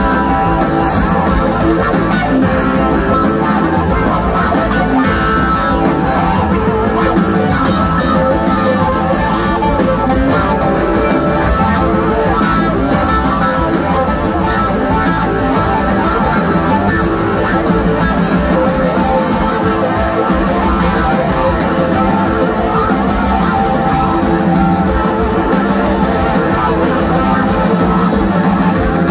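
Live rock band playing, with guitar to the fore over a full band.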